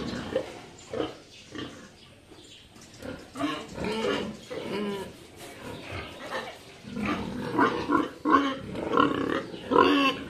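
Sows in crates grunting, short calls in quick succession that grow busier and louder in the second half.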